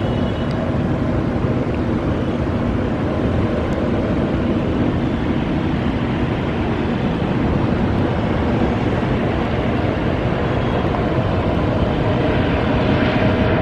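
Four GEnx-2B67 turbofans of a Boeing 747-8F freighter on final approach, a steady jet rumble that grows a little louder as the aircraft closes in.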